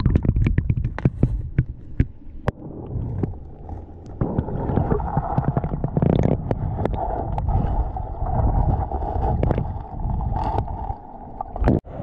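Muffled water gurgling and sloshing around a camera dipped into the waterfall pool, with many sharp knocks and rubs of handling on the casing. The sound is dull and low, with the usual hiss of the falls largely gone.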